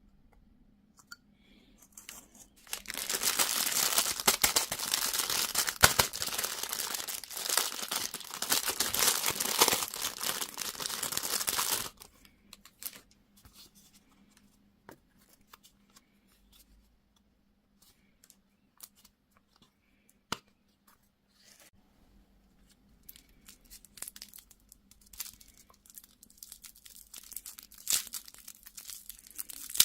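A candy or toy wrapper being torn open and crinkled by hand: a dense burst of tearing and crinkling for about nine seconds, then scattered small crackles and clicks that build again near the end.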